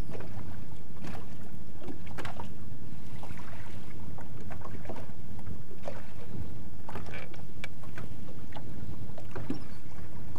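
Small waves lapping and slapping against the hull of a bass boat on a choppy lake, in short irregular splashes over a steady low rumble.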